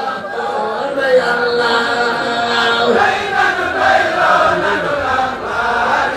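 A group of voices chanting Arabic religious verses, a Sufi qasida, in long held notes that glide slowly up and down.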